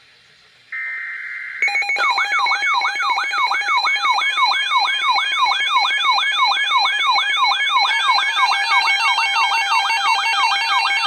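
A digital EAS/SAME header burst, a harsh buzzing, ends about a second and a half in. Weather alert radios then sound their alarm: a loud warbling siren tone sweeping about three times a second over steady beeping tones. A second alarm joins about 8 s in and layers another fast warble on top, set off by an incoming severe thunderstorm warning.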